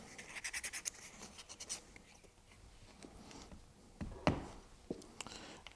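400-grit sandpaper rubbed in quick, faint strokes over a guitar bridge pin held in a wooden block, to smooth the freshly filed bevel; then a few light clicks and knocks about four seconds in as the pin is handled in the block.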